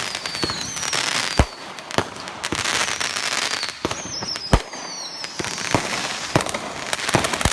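Consumer fireworks going off: rapid crackling and popping, high whistles that fall in pitch, and two loud bangs about a second and a half and four and a half seconds in.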